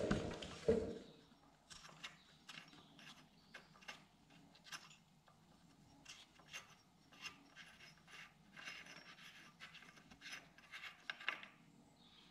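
Kawasaki KLE 500 front sprocket nut being spun off the output shaft by hand: light metallic clicks and scraping of the nut and its washer on the thread, with a louder knock in the first second.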